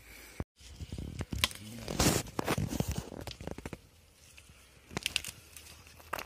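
Leaves and branches rustling and crackling, with small knocks and scrapes, from someone moving about up in a tree; the sound cuts out for a moment about half a second in.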